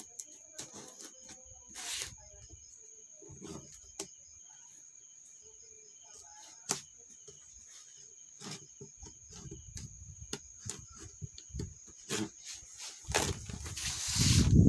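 Small knife cutting and scraping the packing tape on a cardboard parcel box, with scattered light clicks and scratches. Near the end a loud rustling starts as the box is pulled open.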